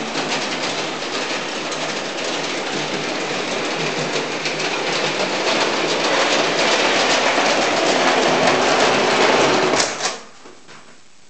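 Hornby No. 2 Special clockwork tank locomotive running on tinplate O gauge track: a dense metallic clatter of wheels and clockwork mechanism. It grows louder over the last few seconds, then stops abruptly about ten seconds in.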